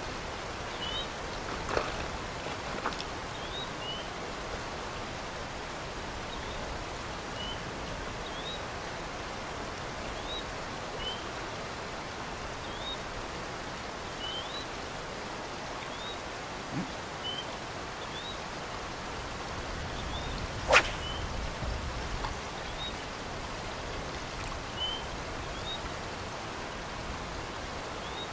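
Steady rush of a woodland stream, with short high chirps from a small animal repeating irregularly, about once a second or two. A single sharp click stands out about three quarters of the way through.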